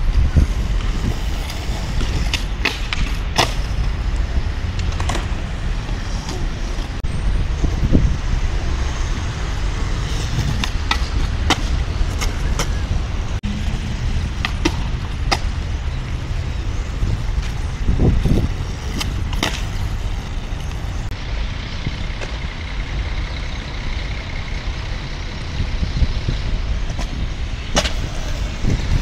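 Skateboard wheels rolling on concrete with a steady low rumble. Sharp clacks come at irregular intervals throughout, from the board's tail popping and the board landing.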